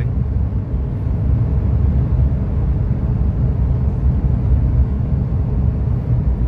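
Steady low rumble of a car driving along a road, heard from inside the cabin: engine and tyre noise at an even cruising pace.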